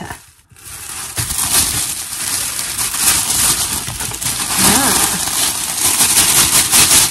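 Tissue paper crinkling and rustling loudly as a length of fabric is unwrapped from it and shaken out, starting about a second in.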